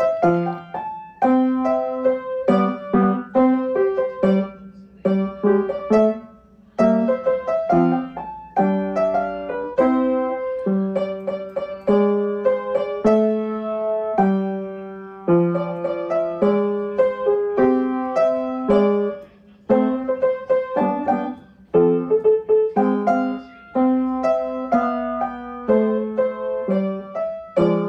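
Background piano music: a melody of separate struck notes over chords, each note fading after it is played.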